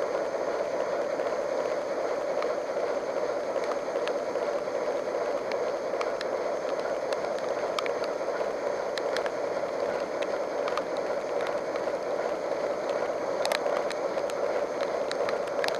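Steady running noise inside a locomotive cab in the rain, with a constant hum and scattered sharp ticks, a cluster of them near the end.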